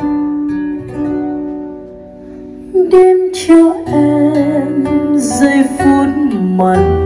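Recorded Vietnamese lyrical (trữ tình) music played back over a hi-fi system with large horn loudspeakers: acoustic guitar picking an intro over sustained bass notes, with a wavering lead melody coming in about three seconds in.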